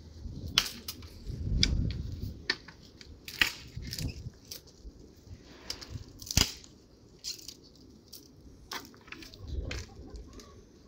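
Dry sticks and twigs being handled and snapped, a string of sharp cracks with one loudest snap about six seconds in.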